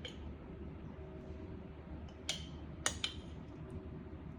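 A few light clinks of a spoon against a container, about two and three seconds in, over a low steady hum.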